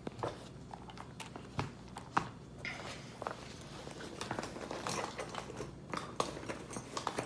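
Irregular sharp clicks and light taps with brief rustling, as of small hard objects and tools being handled.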